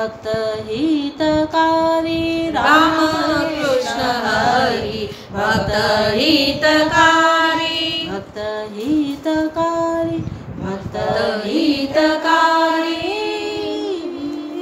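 A woman singing a Hindu devotional bhajan solo, in long held notes with melodic turns.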